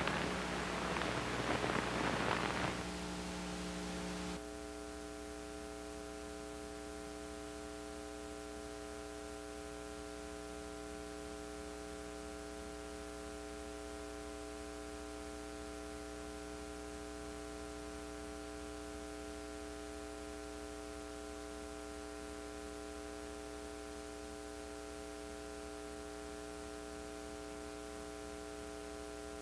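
The last of the orchestral closing music dies away in the first few seconds, leaving a steady electrical hum with hiss from the old tape transfer.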